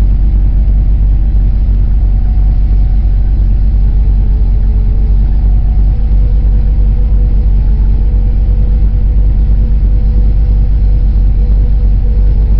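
Engine of a stopped vehicle idling, heard from inside the cab: a steady low rumble with a constant hum.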